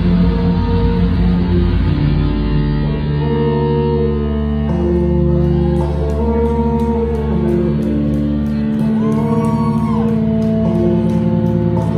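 Live band playing dark rock with electric guitars over held, droning notes. A steady ticking beat comes in about five seconds in.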